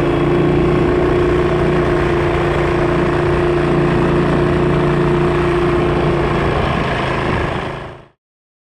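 A small engine idling steadily, fading out about eight seconds in.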